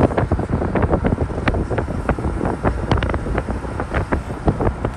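Wind buffeting the microphone over the low rumble of a moving vehicle, with rapid irregular crackles.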